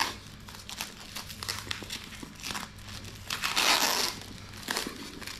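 Brown packing tape being peeled and torn off a cardboard parcel: crinkling and crackling, with a longer, louder rip a little over three seconds in.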